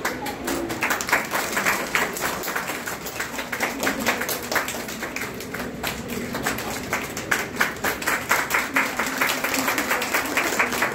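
A small group of people clapping their hands, a dense, uneven patter of claps that keeps going.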